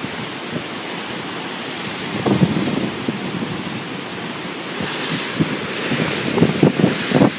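Ocean surf on the shore with wind buffeting the microphone; a rushing hiss swells briefly about five seconds in.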